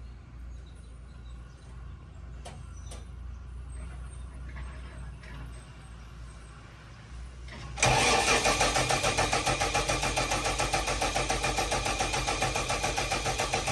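Starter cranking the diesel engine of a Bomag BW212 D-3 roller: it begins suddenly about eight seconds in, with an even rapid beat of compression strokes, and the engine does not catch. Before it there is only a low steady hum with a couple of faint clicks.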